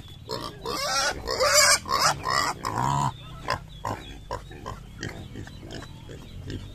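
Pigs grunting and squealing while being fed, with a loud run of squeals from about one to three seconds in, then rapid short grunts.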